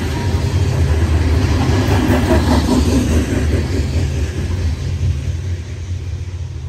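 Loaded coal hopper cars of a long freight train rolling past: a loud, heavy low rumble of steel wheels on rail that fades over the last couple of seconds as the end of the train goes by.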